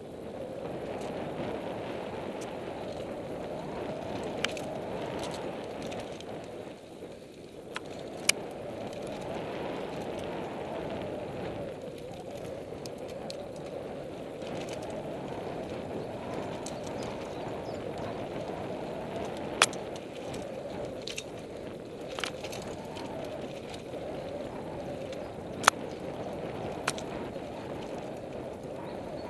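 Mountain bike riding along a dirt singletrack: a steady rushing noise of tyres and wind, with a handful of sharp knocks as the bike rattles over bumps.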